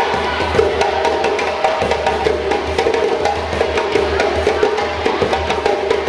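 Live drumming accompanying African dance: a dense, steady stream of quick, sharp drum strokes.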